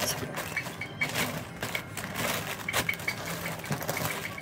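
Wrapping paper crinkling and rustling in irregular crackles as it is folded and crumpled by hand around a gift.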